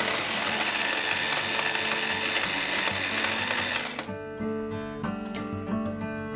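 Morphy Richards Vivo electric mini chopper running with a steady motor whine as it coarsely chops roasted tomatoes, then cutting off abruptly about four seconds in. Background music plays on after it stops.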